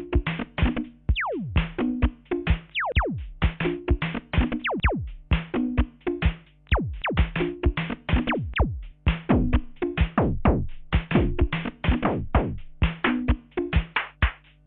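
Electronic music from a Korg Kaossilator: a looped drum-machine beat with a repeating bass pattern, and quick downward synth pitch sweeps played over it, bunched thickest in the middle stretch.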